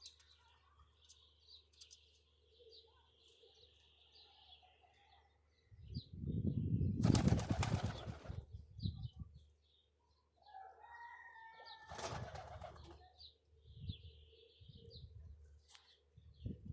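Birds flapping their wings in a loud flurry lasting about three seconds, with a shorter flutter a few seconds later, while small birds chirp faintly.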